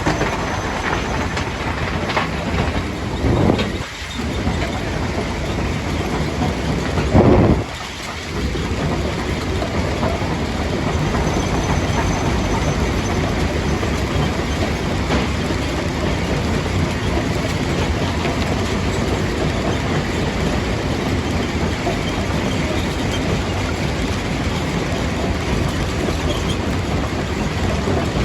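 Primary jaw crusher running as it crushes stone, a steady dense mechanical noise. Two louder crashes break through about three and seven seconds in.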